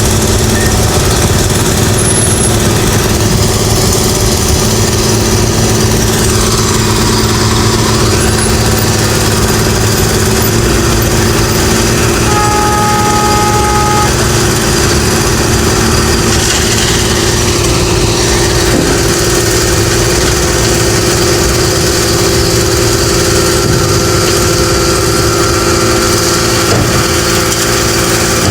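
Road construction machinery and traffic engines running steadily, a continuous loud drone, with a brief two-note tone lasting about a second and a half roughly halfway through.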